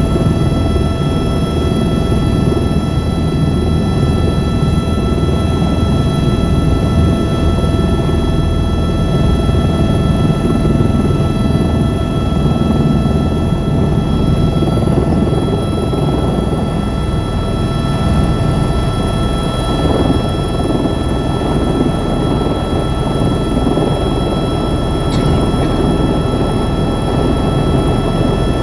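Helicopter running, a loud, steady rotor and engine noise with a constant high whine from the turbine.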